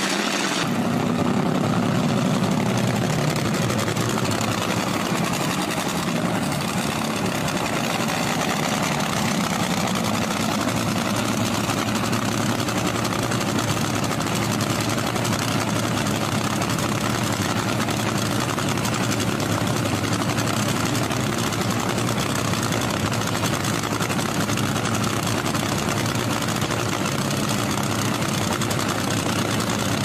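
Top Fuel dragster's supercharged nitromethane-burning V8 running at a steady idle, a loud, unchanging drone with no revving.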